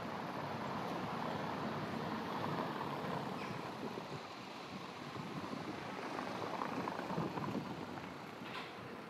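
Street traffic noise: vehicles, among them a motorcycle, passing along a narrow town street, swelling twice as they go by.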